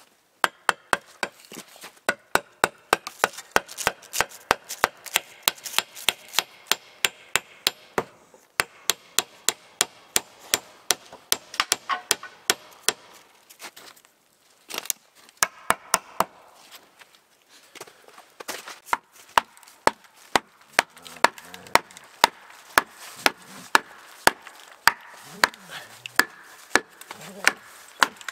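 Wooden club knocking wooden wedges into a birch log to split it lengthwise. Sharp, even knocks come about twice a second, with a few short pauses.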